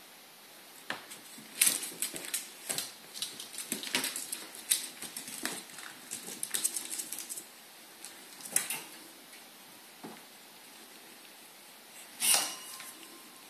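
Pet ferrets scrabbling and rummaging on hard plastic: quick, irregular clicks and clatters of claws and bodies on a plastic storage box and a plastic pet carrier. There is a louder clatter about twelve seconds in.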